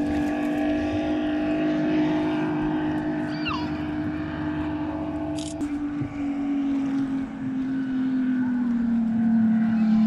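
Racing speedboat engine running hard at speed, a steady drone whose pitch sinks slightly in the second half as the boat passes.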